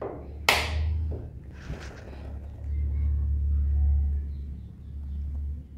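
A sharp click about half a second in as the bench power supply is switched, then a low rumble with light handling noise as the test tube is lifted from the water.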